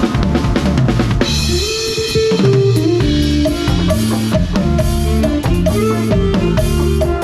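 Live band playing a cha-cha, the drum kit loudest: bass drum, snare and rimshots keep the beat over a walking bass line, with a held chord about a second in.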